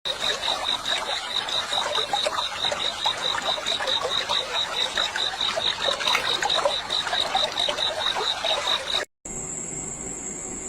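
A chorus of frogs and insects calling: an evenly pulsed high trill at about three to four pulses a second over a dense mass of short chirps and croaks. It cuts off suddenly about nine seconds in and gives way to a steady high whine and hiss.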